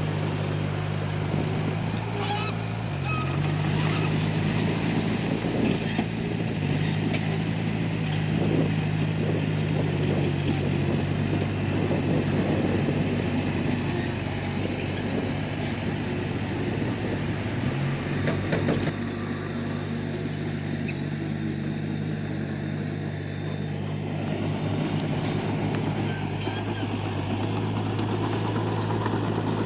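Komatsu D31P bulldozer's diesel engine running steadily under working load, its note sagging briefly a few times, with occasional sharp clanks.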